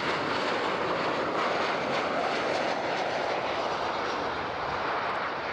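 Boeing 737-900ER's CFM56-7B turbofan engines passing on final approach to land, a steady jet noise.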